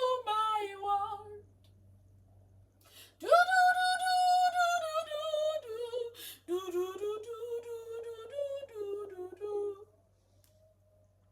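A woman singing alone without words, holding long high notes and sliding between them, in two phrases with short pauses; no instruments are heard.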